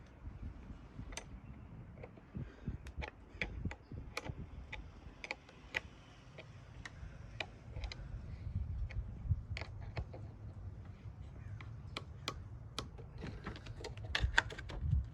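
Irregular light clicks and taps of hand work with tools and car parts, over a faint low rumble.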